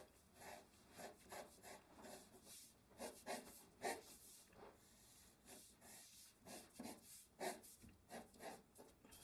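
Faint scratching of a pencil on drawing paper, in short irregular strokes several times a second.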